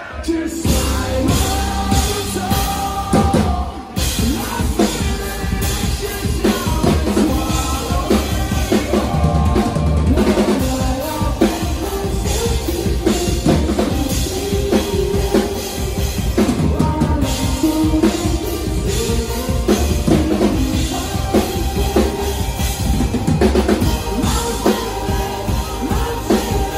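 A rock band playing live at full volume: electric guitar, pounding drum kit with heavy bass drum, and a singer's voice over it. The band comes in hard right at the start, and there is a brief break about four seconds in.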